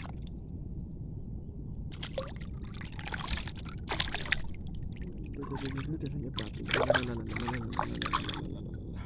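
Water splashing and sloshing in shallow water, in an irregular run of splashes that starts about two seconds in and dies away near the end, over a steady low rushing background.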